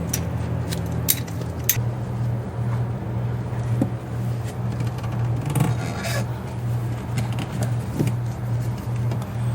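Background music with a steady low pulsing beat, over a few sharp clicks and scraping sounds from hand tools at work.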